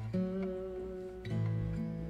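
Background music: an acoustic guitar strumming chords, with a new chord struck just after the start and another about two-thirds of the way through.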